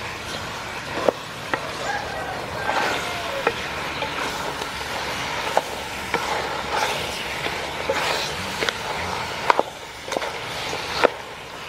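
Wooden spatula stirring chunks of raw pork leg in a large aluminium pot, the meat shifting and rustling, with irregular sharp knocks of the spatula against the pot's side.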